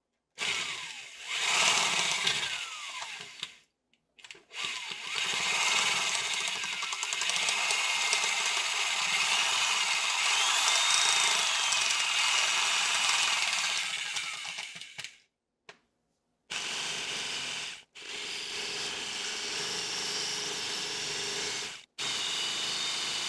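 Old corded Milwaukee electric drill boring into a concrete floor with a drill bit. It runs in several loud stretches that start and stop abruptly, and its whine rises and falls in pitch.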